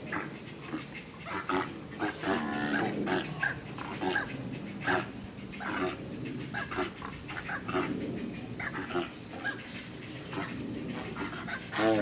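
Great white pelicans at a nest with a downy chick, giving a string of short, rough, pitched calls with clicks and knocks between them.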